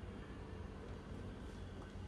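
Faulty refrigerator motor running with a steady low hum and whir, the noise of a failing fridge motor.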